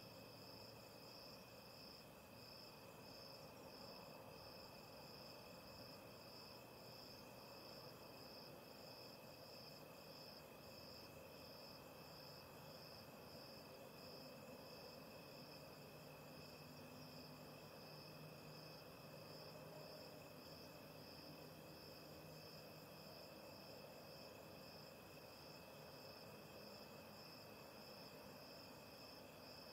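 Crickets chirping faintly: a regular chirp about twice a second over a steady, unbroken high trill.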